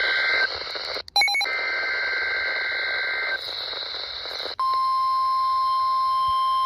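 Emergency Alert System data bursts on a weather radio broadcast: the end of one raspy two-tone SAME header burst, then a second burst of about two seconds. About four and a half seconds in, the steady 1050 Hz weather radio alert tone starts and holds, over a hissy radio signal.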